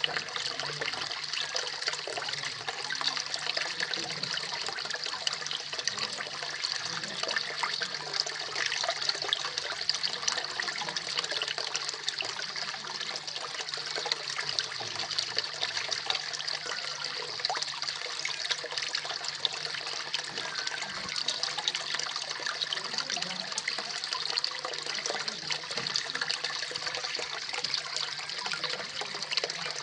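Koi pond waterfall: water falling and splashing steadily into the pond, a continuous even splashing rush.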